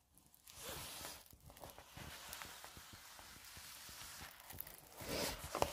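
Faint handling noise: soft rustling with small irregular taps and ticks as a diamond-painting canvas under its clear plastic cover is moved and handled.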